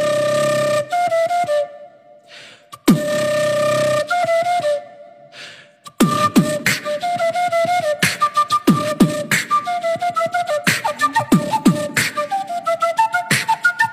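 Background music: a flute melody over an electronic beat of deep kick drums. The first two long flute phrases each open on a single kick, and from about six seconds in a steady beat of kicks and sharp clicks runs under the melody.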